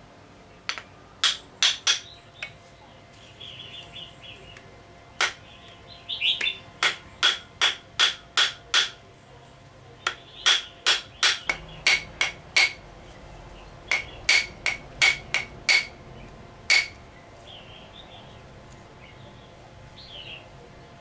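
Repeated hammering strikes driving the wooden handle onto the tang of a steel kitchen-knife blade, in runs of quick blows about three a second. Each blow is sharp and carries the same short metallic ring from the blade.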